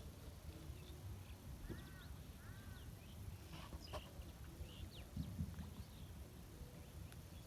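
Faint outdoor ambience with scattered short bird chirps, including two arched calls about two seconds in, over a steady low rumble.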